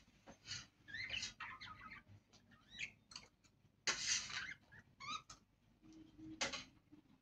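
Budgerigars chattering: a string of short chirps with quick rising slides, a louder harsh squawk about four seconds in, and a few sharp clicks.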